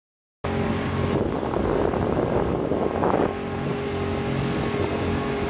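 Small boat's motor running steadily, starting abruptly about half a second in, with wind buffeting the microphone, heaviest between about one and three seconds in.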